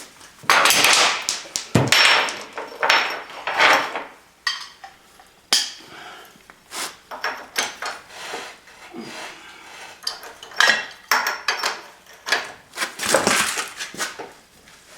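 Irregular metallic clanks, clicks and scrapes of a breaker bar and socket being worked against a stuck control-arm bolt, in uneven bursts with short pauses.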